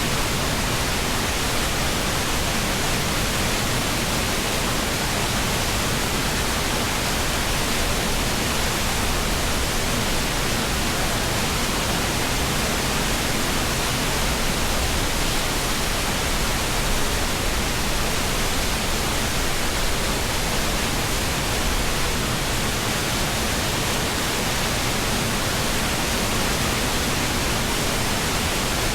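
Mountain stream rushing over rocks: a steady, even water noise that does not change.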